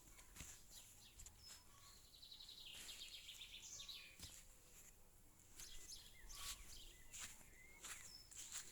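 Faint birds chirping, with a short rapid trill about three seconds in, over scattered light clicks and rustles.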